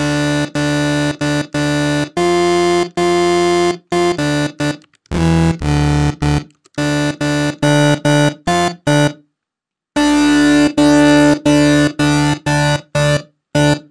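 Ableton Live's Analog synthesizer sounding a sawtooth bass patch with oscillator sync, played as a string of short notes on one low pitch with brief gaps between them. After a short break about nine seconds in, the notes run longer with a slowly sweeping, swirling shimmer as unison detune is added.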